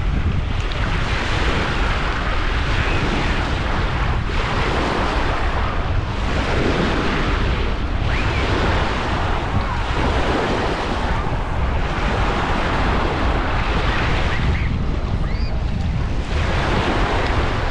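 Waves washing onto a sandy beach, swelling and easing every couple of seconds, with wind buffeting the microphone in a steady low rumble.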